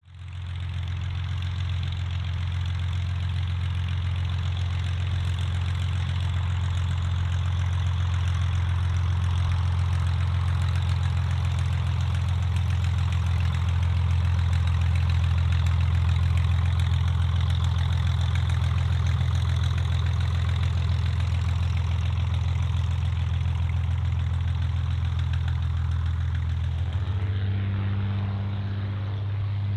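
Light propeller aircraft's piston engine running steadily at low revs with a low, even note; near the end the note steps up as the engine speeds up.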